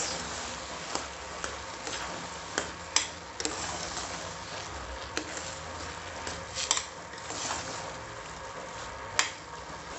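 A spoon stirring grated carrot and reduced milk in a steel pressure cooker pan on the stove, with a steady sizzle and a few sharp clicks of the spoon against the metal.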